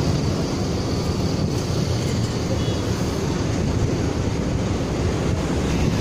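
Steady low rumble of road traffic under wind buffeting on the microphone, with no distinct engine note standing out.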